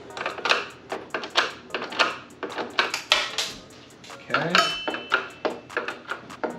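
Hand screwdriver backing the screws out of a flat-screen TV's stand base: a run of quick metal clicks and clinks from the screwdriver, screws and stand parts. About four and a half seconds in, one clink rings briefly.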